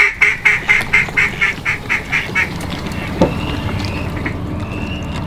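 Hunter's duck call blown in a fast run of about eleven quacks that grow quieter and trail off over two and a half seconds. A single thump follows about three seconds in.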